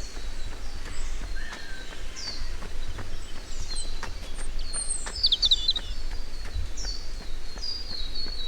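Birds singing: short falling calls repeating about once a second, with a quick flurry of chirps about five seconds in, over a steady low rumble.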